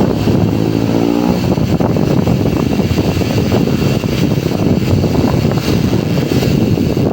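Loud, steady rushing of wind on the microphone, with a short falling tone about a second in.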